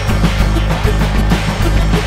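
Live drum kit played with live electronics: rapid, dense drum and cymbal hits over a steady, unbroken low electronic bass.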